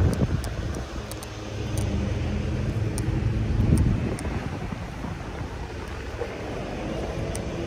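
Car driving slowly over a rough dirt and grass farm track: a steady low engine hum with the rumble of tyres on uneven ground, swelling louder at the start and again about four seconds in.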